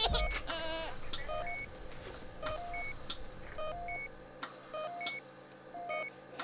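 Short electronic beeps at two alternating pitches, each repeating roughly every second, like a hospital monitor. In the first second, a newborn's brief wavering cry.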